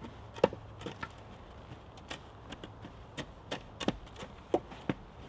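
A wooden tamping stick knocking as it packs damp clay down around the base of an upright timber post, about ten irregular knocks.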